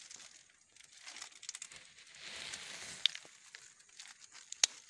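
Dry coconut coir fibre rustling and crackling as handfuls are pulled apart and spread by hand, with two sharp clicks, the louder one near the end.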